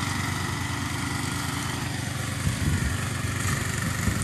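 A motor running steadily at an even pitch, with some irregular low thumps joining in during the second half.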